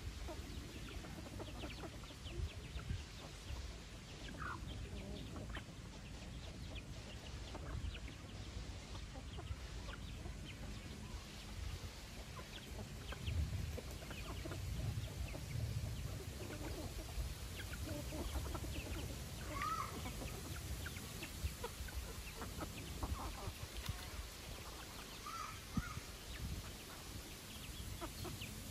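Chickens clucking softly as they feed, with a few short calls and scattered light clicks of pecking.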